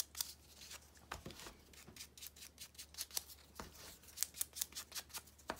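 Foam ink blending tool dabbed repeatedly on an ink pad and onto a small piece of cardstock: light, irregular pats and scuffs, several a second.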